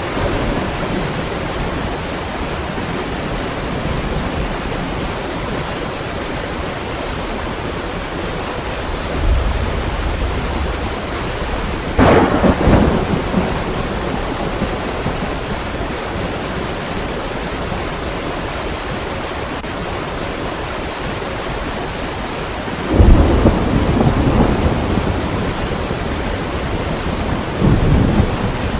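Steady rushing of heavy rain and falling water. Four louder low rumbles break through it, about 9, 12, 23 and 28 seconds in; the one about 12 seconds in opens with a sharp crack.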